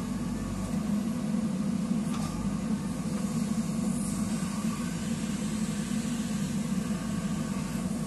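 JCB 3DX backhoe loader's diesel engine running steadily while the backhoe arm is swung and raised, a constant low hum with no sharp knocks.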